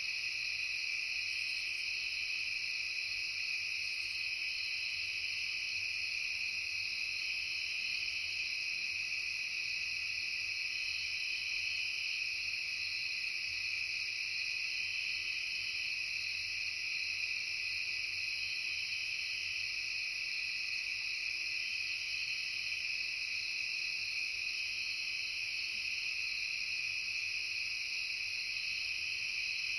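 Crickets trilling in a steady, unbroken chorus, several overlapping high pitches at once.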